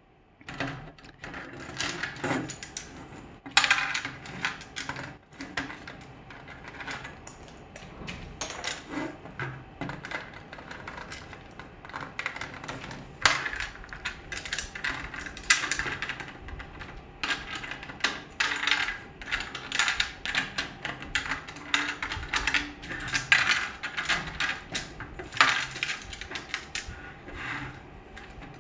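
Cockatoo's beak clicking, tapping and scraping on a hard plastic Lego boat hull as it works at prying the boat apart, a rapid, irregular run of small plastic clicks and rattles.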